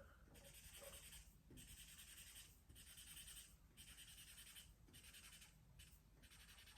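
Felt-tip markers scribbling on paper, colouring in stripes: faint repeated hissing strokes, about one a second.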